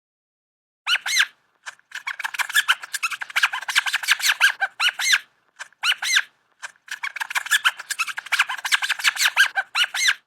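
Mouse squeaking sound effect: a rapid run of short, high-pitched squeaks in several bursts separated by brief pauses.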